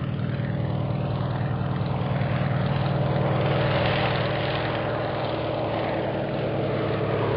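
Propeller-plane engine sound effect: a steady low drone, with a slight swell in the middle.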